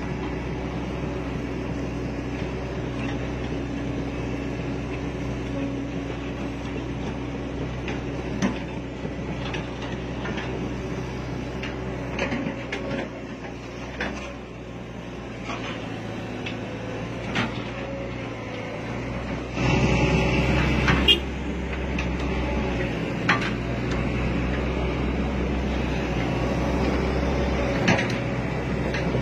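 Excavator diesel engine running steadily, with scattered clanks and knocks and a louder stretch about twenty seconds in.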